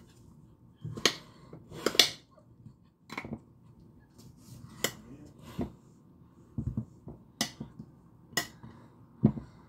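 Irregular sharp clicks and knocks of kitchen utensils, roughly one a second.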